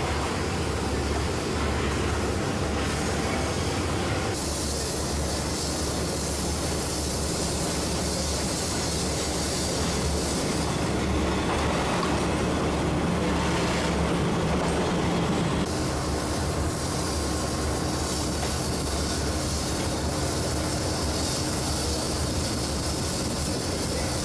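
Diesel passenger train moving slowly along a station platform, with a steady rumble of wheels on rails and running gear.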